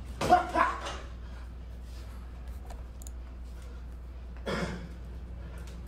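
A person's brief vocal sounds over a low steady hum: a short utterance just after the start and a sigh-like breath about four and a half seconds in.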